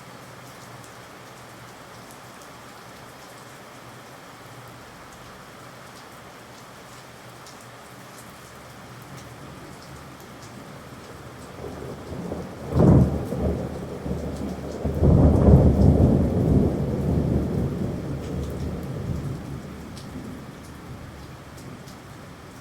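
Steady rain falling, with thunder about halfway through: a sharp crack, then a longer rolling peal that swells and slowly fades back into the rain.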